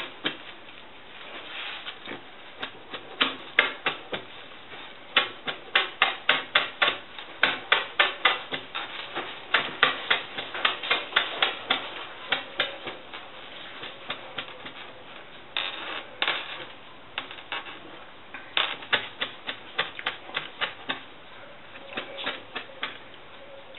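Kitchen knife mincing chives on a plastic cutting board: runs of sharp taps, about four a second, with short pauses between runs.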